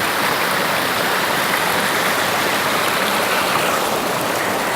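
Waterfall pouring into a river: a steady, loud rush of falling water.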